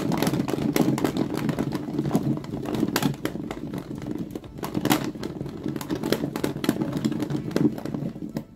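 Chunks of raw potato coated in oil dressing tumbling and knocking inside a lidded glass bowl as it is shaken to mix them: a rapid, continuous clatter.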